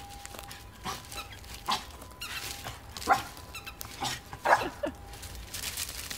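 Japanese Spitz barking: about five short, high barks spread over a few seconds, the loudest two about three and four and a half seconds in.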